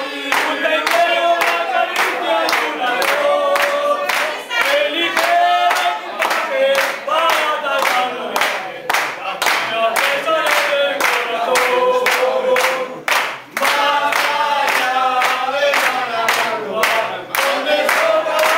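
A group of men singing a chant together while clapping their hands in a steady rhythm, about three claps a second.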